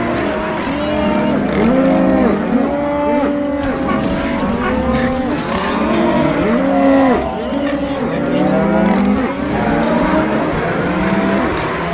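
Many stomach-growl sound effects layered on top of one another, making a dense, continuous mass of overlapping growls that each rise and fall in pitch.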